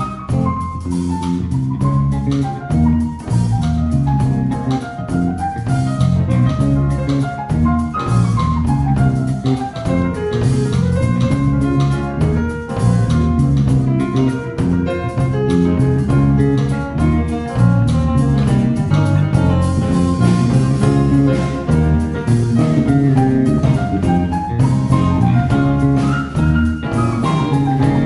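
Small jazz band playing live: grand piano, electric guitar and drum kit, with a busy melody running over a steady groove.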